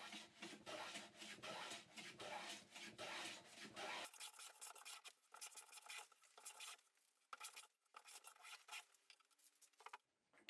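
Faint, repeated strokes of a metal bench plane shaving the edges of softwood pieces clamped together in a vise. The strokes stop about four seconds in, leaving only a few light knocks and clicks.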